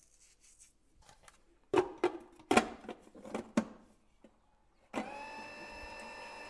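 A clear plastic splash-guard lid is handled and clicked into place on a stand mixer's stainless steel bowl, a series of sharp plastic clicks and knocks. About five seconds in, the mixer's electric motor starts and runs at a steady pitch, beating the cream-cheese mixture.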